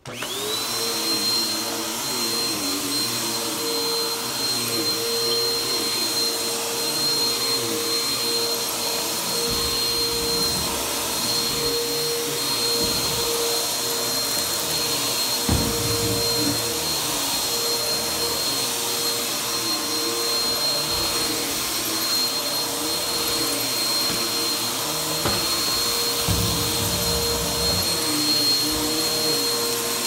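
Bagless upright vacuum cleaner switched on, its motor spinning up in the first moment to a steady high whine. It then runs while being pushed over carpet, with a few low thumps.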